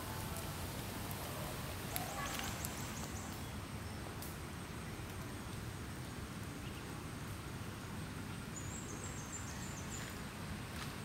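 Steady outdoor background noise, with a few faint clicks about two seconds in and a short run of high chirps near the end.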